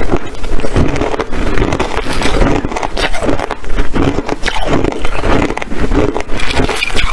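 Hard ice being chewed close to the microphone: loud, irregular crunching and cracking, several crunches a second.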